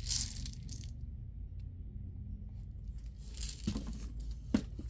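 Plastic scent-bead bottles being handled: rubbing and rustling at the start, a quieter stretch, then more handling and two light knocks near the end as a bottle is set down, over a steady low hum.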